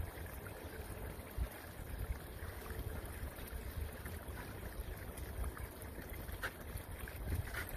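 Wind buffeting the microphone outdoors: an uneven, gusty low rumble, with a few faint short high sounds near the end.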